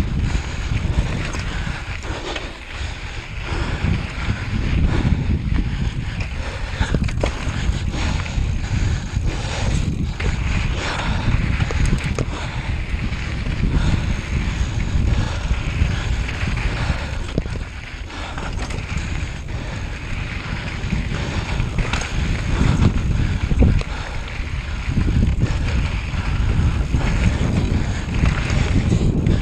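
Wind buffeting the microphone: a loud, uneven rumble that rises and falls.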